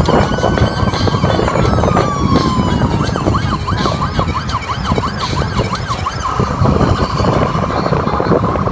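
Electronic police car siren: a slow rising and falling wail, switching about three seconds in to a fast yelp of about four pitch swings a second, then back to a wail near the end, over a low rumble of vehicles.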